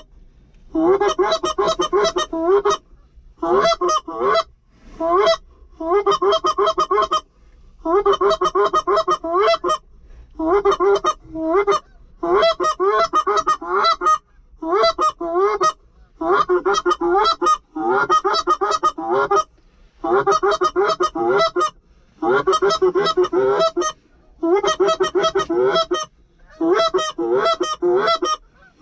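Goose honks and clucks in loud, rapid bursts, one burst every second or two, each a quick run of notes.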